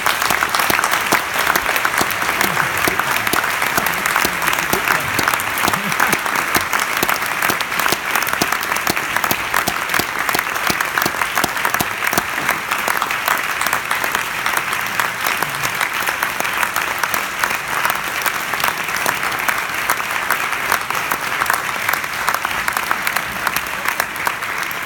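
An audience applauding steadily, many hands clapping at once, easing slightly near the end.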